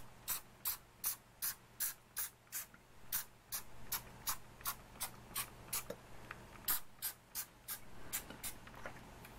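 Small pump spray bottle squirting blue watercolour onto paper, in short sharp hissing puffs about two or three a second, with a brief pause about two-thirds of the way through.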